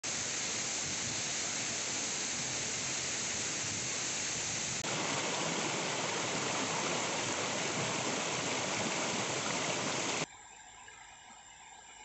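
Shallow rocky stream rushing over stones, a steady water noise that gets louder and brighter about five seconds in, where the stretch of fast water is closer. Near the end it cuts off suddenly to a much quieter background with faint steady tones.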